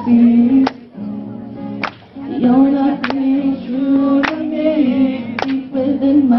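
A male voice singing live with an acoustic guitar, some notes held long and wavering slightly, over a sharp beat that comes about every second and a quarter.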